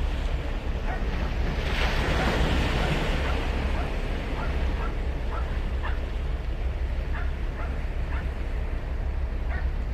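Ocean surf breaking and washing up the beach, one wave breaking loudest about two seconds in, over a low rumble of wind on the microphone.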